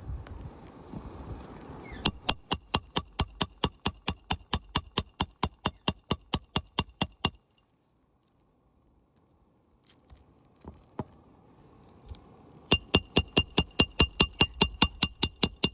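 Hammer driving roofing nails into an asphalt shingle: quick, even strikes about four a second, each with a metallic ring. Two runs of hammering, separated by a pause of several seconds.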